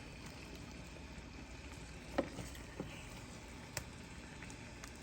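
A pot of chili simmering on the stove, bubbling faintly, with a few sharp clicks about two, three and four seconds in.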